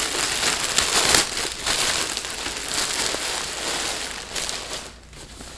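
Clear plastic wrapping crinkling and rustling as it is handled and pulled open by hand, dying down about five seconds in.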